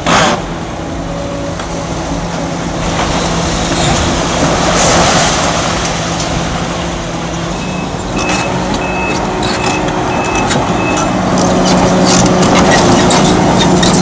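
Diesel engine of a heavy construction machine running under load, with a sharp knock at the start. About eight seconds in, a reversing alarm beeps six times, and metal clanks and knocks come through the second half.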